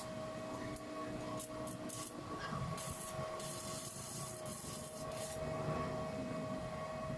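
Metalworking on a gate: scraping and rubbing sounds over a steady hum, with a stretch of hissing from about three to five seconds in.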